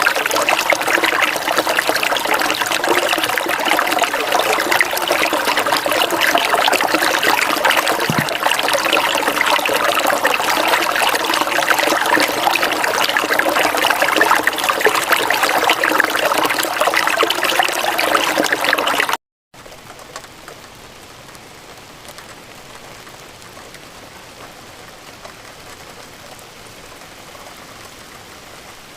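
Running water trickling and splashing steadily. About two-thirds of the way in it cuts out abruptly and gives way to a much softer, even patter of rain.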